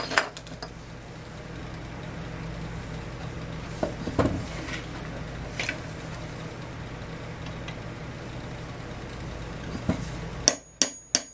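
A steady low hum runs until about ten seconds in and stops abruptly. Then a hammer strikes a steel punch set on the center electrode of a Champion CJ14 spark plug held in a bench vise: four or five quick ringing metallic taps, driving the electrode down through the porcelain.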